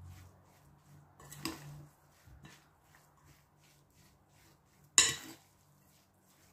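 A metal spoon scraping and knocking against a glass mixing bowl while stirring a minced-meat stuffing, with a few soft knocks and one sharp clink about five seconds in.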